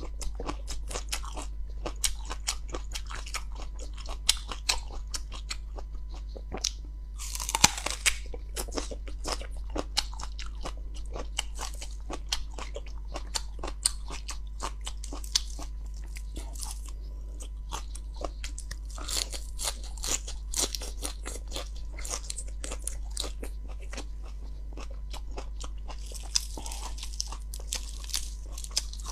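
Close-up chewing of raw vegetables and leafy greens: a dense run of crisp crunches throughout. Leaves rustle as greens are handled, around 8 s, 19–21 s and near the end, over a steady low hum.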